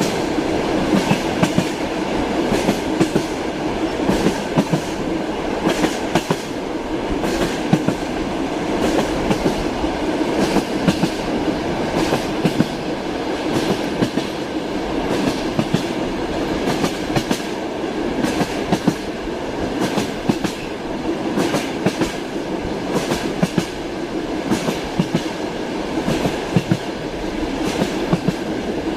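Train wheels clacking over rail joints, repeated clicks over a steady running rumble of a railway carriage in motion.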